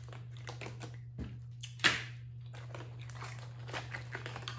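Close-miked eating of a shrimp and snow crab boil: chewing and mouth smacks with a string of small clicks and crackles, and one sharper snap about two seconds in. A steady low hum runs underneath.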